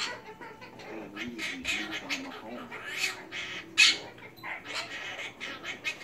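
Caged pet parrots chattering and squawking in short bursts, with low mumbling sounds early on and a sharp, loud squawk a little before the four-second mark.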